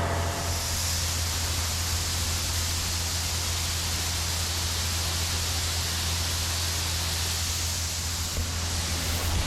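Shelled corn pouring from a grain cart's auger spout into a semi trailer: a steady rushing hiss over the low drone of the tractor driving the auger. The hiss thins out near the end.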